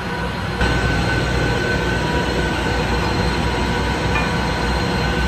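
Steady machine noise that starts suddenly about half a second in and runs on evenly, with a low rumble and a thin high whine.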